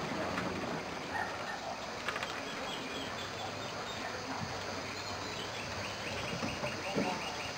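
German Shepherd puppies scrambling on wooden deck steps, with a few light knocks of paws on the boards over a steady outdoor background. A faint, high, rapid trill sounds twice, about two and a half seconds in and again near the end.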